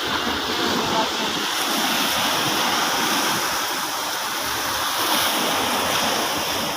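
Sea surf washing onto the beach: a steady rushing of waves.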